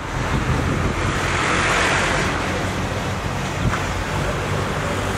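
Road traffic: a steady rumble of vehicles with a hiss that swells and fades about two seconds in.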